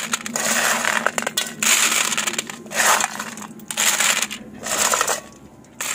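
Live freshwater pond snails (gugli) tipped from a bowl onto a perforated steel plate and spread by hand. Their shells clatter against the metal and each other in several bursts of sharp clicks.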